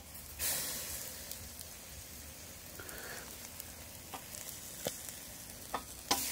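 Marinated chicken sizzling on a wire grill over hot charcoal as a piece is flipped onto its other side. A hiss rises about half a second in and eases off, with a few sharp pops near the end.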